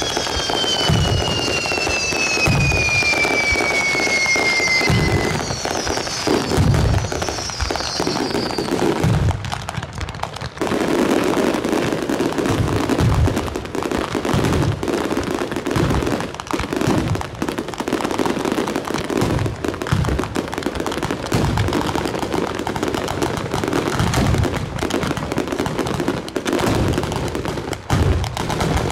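Italian-style (bolognese) ground fireworks battery firing a rapid string of bangs and crackles, with a whistle falling steadily in pitch over the first five seconds. About ten seconds in, the firing thickens into a dense, continuous barrage.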